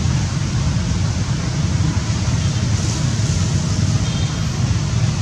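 Steady low outdoor rumble, with a few faint high chirps about four seconds in.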